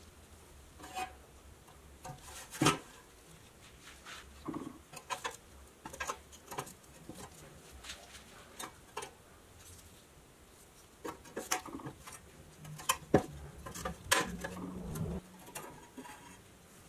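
Pressed-steel toy truck cab handled on a wooden workbench: scattered clicks and knocks as it is set down and turned over, with a sharp knock a few seconds in and a cluster of knocks and a short scrape against the wood past the middle.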